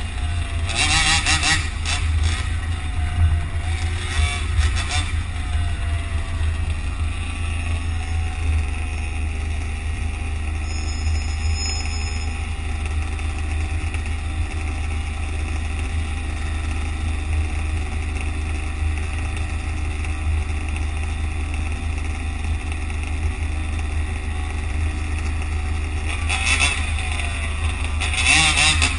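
Road traffic noise with a steady low rumble, picked up from an RC car driving among real cars. Louder rushes of vehicle noise come in the first few seconds and again near the end.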